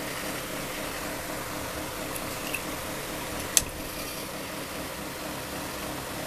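Steady fan-like hum. One sharp click about three and a half seconds in comes from the handling of the tape measure and the aluminium pie tin.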